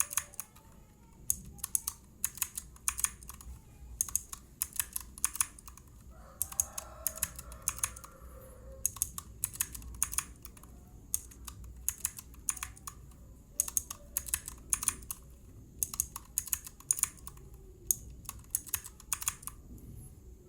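Mechanical keyboard keys pressed over and over in quick clusters with short pauses between them. These are keycaps damped with a cut membrane-keyboard sheet, with a rubber O-ring, and with no damper at all, pressed in turn to compare how loud each one bottoms out.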